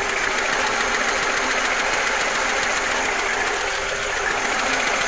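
UAZ-2206 'Bukhanka' van's four-cylinder petrol engine idling cold, soon after starting, running evenly with a fast, steady clatter. It is heard close up with the engine cover open inside the cab.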